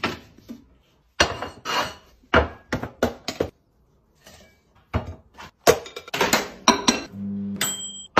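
Glass meal-prep container and its clip-lock lid being handled on a kitchen counter: a series of separate knocks, clinks and clicks of glass and plastic. A short steady hum comes in near the end.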